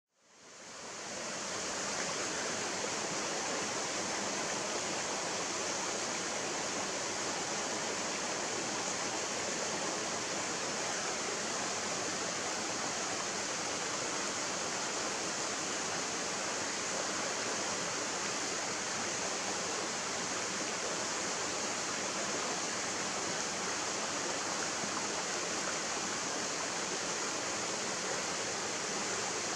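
Shallow mountain stream flowing over rocks and small riffles: a steady rush of water, fading in over the first two seconds.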